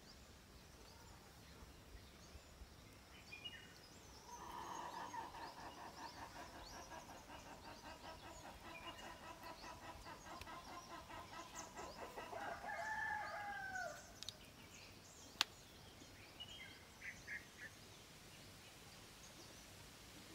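A chicken calling: one long, rapidly pulsing call that starts about four seconds in, lasts about ten seconds and ends in a falling note. Small birds chirp briefly before and after it, and there is a single sharp click near the end.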